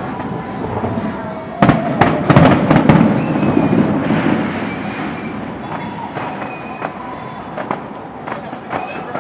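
Fireworks bursting: a loud cluster of sharp bangs and dense crackling about a second and a half in, then scattered cracks and crackles that gradually die down.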